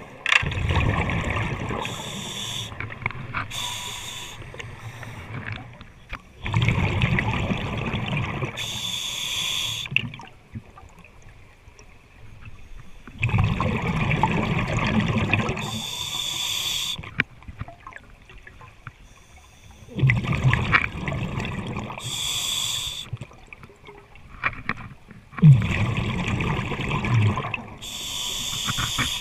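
A scuba diver breathing through a regulator underwater: five breaths about six seconds apart, each a loud bubbling rush of exhaled air, with a short high hiss from the regulator.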